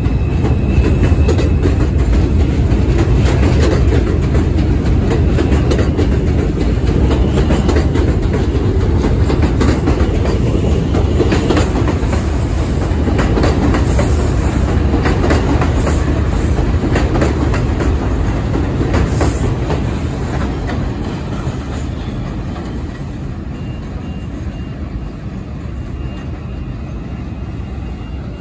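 New York City subway train running past, with a heavy rumble and wheels clicking over rail joints, loud at first and gradually fading over the last several seconds.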